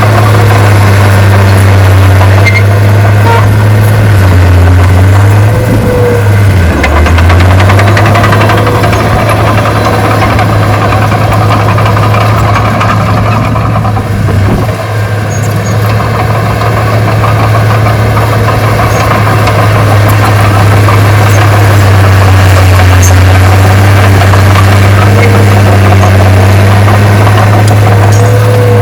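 Heavy diesel engine of earthmoving equipment running loud and steady, its low note dipping and recovering about six seconds in as the load changes, and dropping again at the very end.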